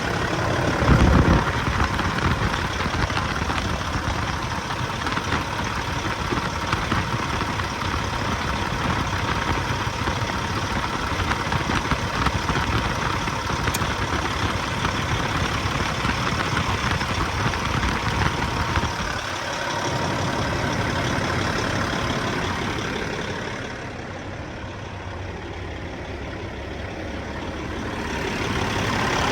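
Freightliner Classic semi truck's diesel engine idling, with a steady rush of air from the engine fan, which has been direct-wired to run all the time. There is a low thump about a second in. The sound eases off quieter about three quarters of the way through and builds again near the end.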